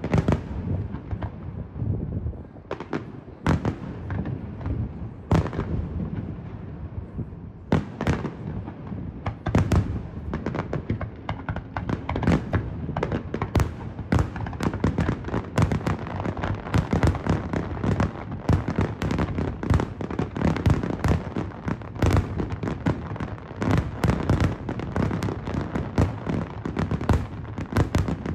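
Aerial fireworks shells bursting: a few spaced bangs at first, then from about nine seconds in a dense, rapid barrage of overlapping bangs.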